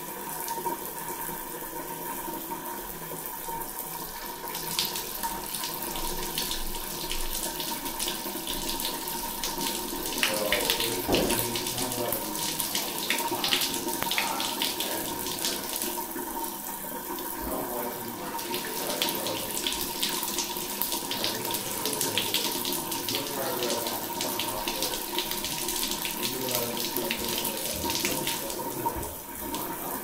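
Shower water running steadily from a wall-mounted shower mixer and splashing onto the tiled floor, a constant hiss with a thin steady tone under it.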